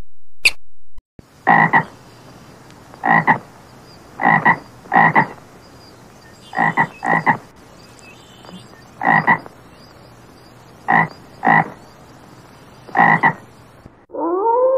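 A toad croaking: about eleven short croaks, some in quick pairs, a second or two apart. Near the end a rising electronic tone sets in and holds.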